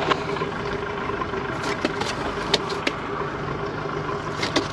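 Outboard boat motor running steadily at idle, with a few sharp light clicks and knocks.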